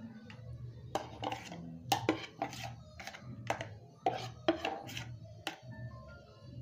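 Metal spoon clinking and scraping against a steel bowl as salad is pushed out onto a plate: about a dozen irregular clinks and scrapes, thinning out after about five and a half seconds.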